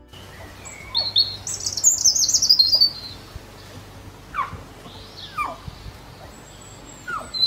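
Birds chirping: a quick high twittering about one to three seconds in, then several short calls that slide down in pitch.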